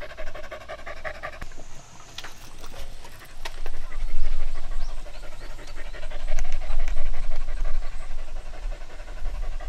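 A hunting dog panting quickly and steadily, with a low rumble underneath that grows louder from about four seconds in.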